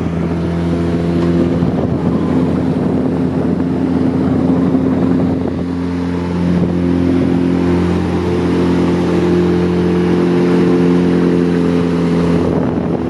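Outboard motor on a small fishing boat running steadily underway, its pitch shifting a couple of times, with wind and water noise.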